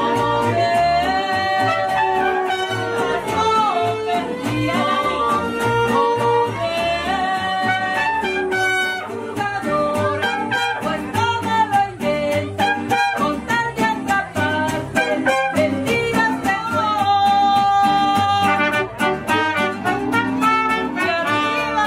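Mariachi band playing live: violins and trumpets carry the melody over a steady strummed guitar and guitarrón bass.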